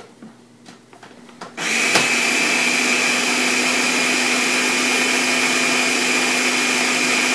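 Ninja blender switched on about a second and a half in and running steadily with a high whine, blending a thick frozen protein shake.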